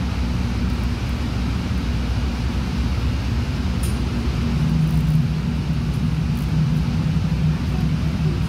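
DART light rail car running, heard from inside the passenger cabin: a steady low rumble, with a humming tone that grows stronger about halfway through.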